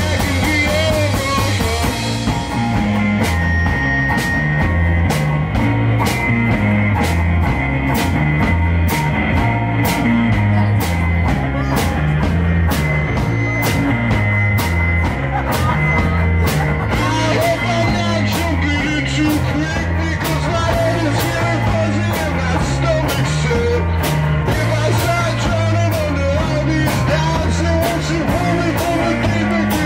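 Live rock band playing loud: electric guitar over a stepping low bass line, and a drum kit with cymbals struck several times a second.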